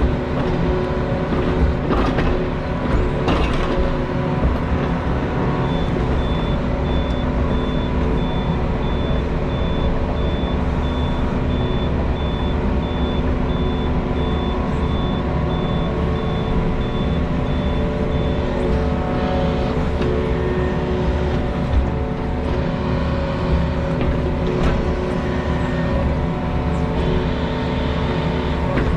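Skid steer engine running steadily under work, with its backup alarm beeping for about thirteen seconds while it reverses. A few clanks come near the start and again near the end.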